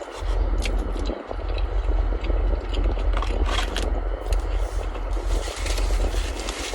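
Close chewing and crunching of a fried Korean corn dog's crispy coating, as scattered crackly clicks over a steady low rumble.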